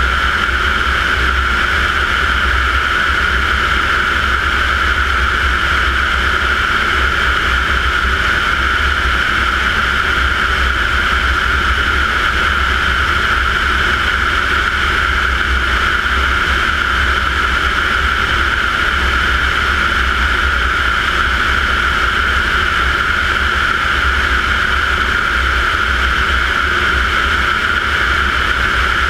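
TP 100 turboprop engine and propeller running steadily in cruise flight, heard from a camera on the wing: a constant high whine over a low rumble, unchanging throughout.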